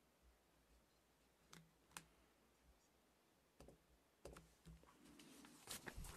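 Near silence with faint scattered clicks and soft rustles, growing busier over the last second or so.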